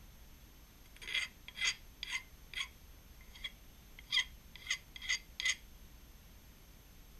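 Hand file scraping over a new Atlas lathe split nut (half nut) in about nine short strokes, in two runs, deburring the part.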